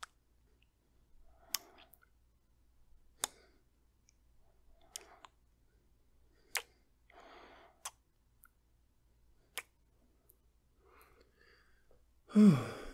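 A man's lips making kissing sounds: about seven sharp wet smacks, roughly one every second and a half, with soft breaths between. Near the end comes a louder short voiced sound that falls in pitch.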